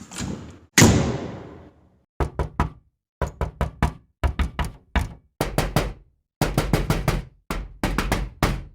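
One heavy thud with a long fading boom, then rapid knocking in quick clusters of three to five knocks, repeated over and over.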